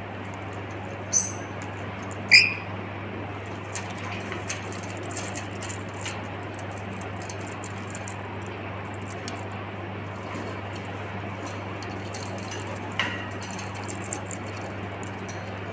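A pet lory parrot giving three short, high squeaks: one about a second in, a louder one soon after, and one near the end. Faint scratchy ticking runs in between, over a steady low hum.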